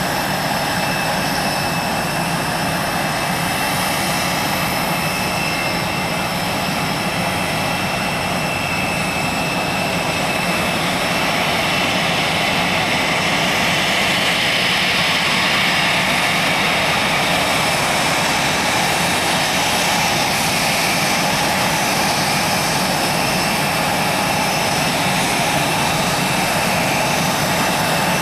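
Twin Rolls-Royce AE 3007 turbofans of an Embraer ERJ-145 regional jet whining steadily at taxi power. The sound grows louder and brighter in the middle as the jet turns to face the listener.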